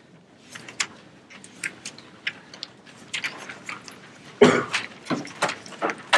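Scattered clicks, taps and rustles from people handling papers and working at laptops, irregular and unrhythmic, with a louder, fuller rustle or bump about four and a half seconds in.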